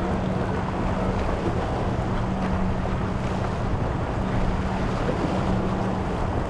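Outboard boat engines idling as a steady low drone, with wind buffeting the microphone and choppy waves washing.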